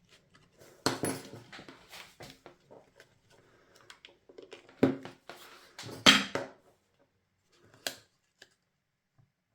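Craft materials being handled on a work table: paper and trim rustling, with a few sharp taps and knocks as things are pressed and set down.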